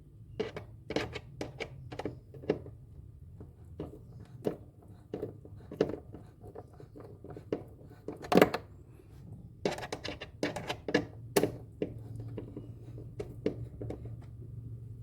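Irregular clicks, taps and knocks of hand work on refrigerator parts, one louder knock about halfway through, over a steady low hum.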